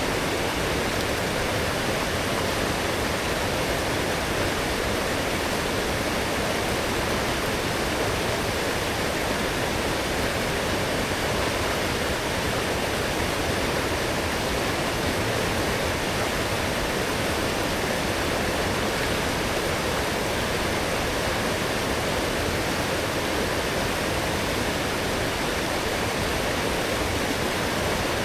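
A strong forest stream, swollen after heavy rain, rushing and splashing over its bed in an even, unbroken flow.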